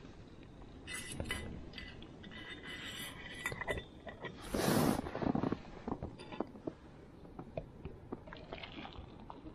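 Metal cook pot, lid and folding handles clinking and scraping as a pot of hot water is taken off a small backpacking stove, with a brief loud rush of noise about halfway through and a few light clicks after.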